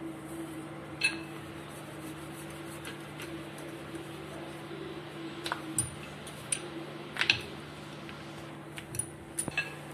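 Wooden rolling pin rolling out a paratha dough round on a floured counter, with a few light clicks and knocks, the sharpest about seven seconds in, over a steady low hum.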